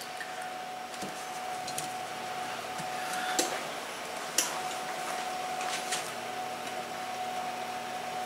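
Steady machine hum with a constant tone, with a few light knocks and scrapes as a cast iron skillet is tilted and shifted on a glass-top electric stove, the last of them close together about six seconds in.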